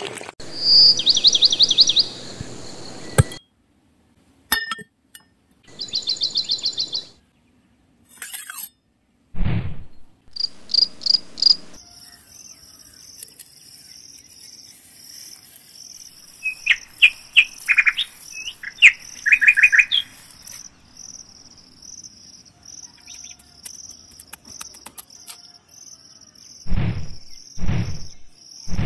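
Small birds chirping in short bursts of quick repeated calls, over a steady high trilling of insects that sets in partway through. Near the end there are two low thuds.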